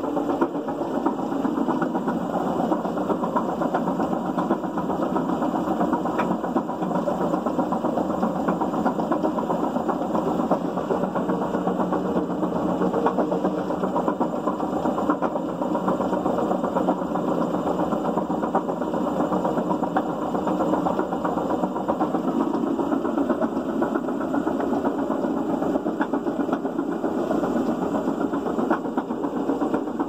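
Maytag MCT front-loading washing machine running a wash, with a loud, steady mechanical noise from the drum: the sign of a failed drum bearing.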